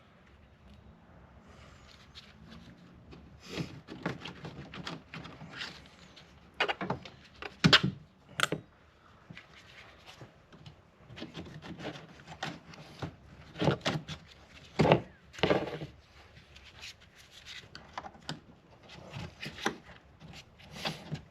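Retaining clips being pried out and handled with a screwdriver: irregular clicks, scrapes and rubs scattered throughout.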